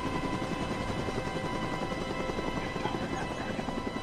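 Helicopter noise heard from inside the cabin: the rotor beats fast and steadily under a constant engine drone.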